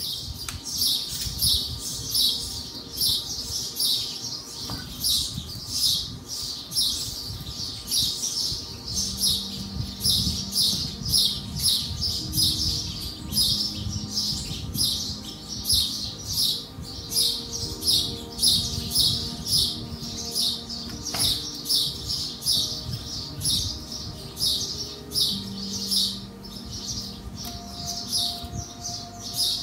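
A small bird chirping over and over, short high chirps about three a second without a break. Soft background music with long held notes comes in underneath about nine seconds in.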